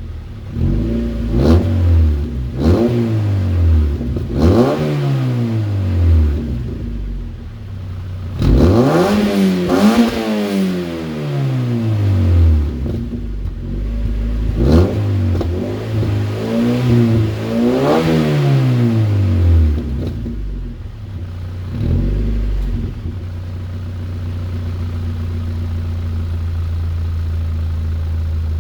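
Mazda Miata NC's four-cylinder engine revved repeatedly, first in short blips and then in several higher revs that rise and fall back, settling into a steady idle for the last several seconds. It runs through the stock exhaust with two washers spacing the pipe from the muffler, a deliberate exhaust leak meant to change its note.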